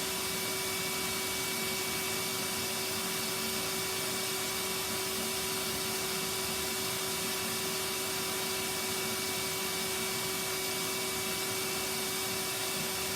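Vacuum cleaner running steadily: an even rushing hiss with a constant whine, unchanging in level.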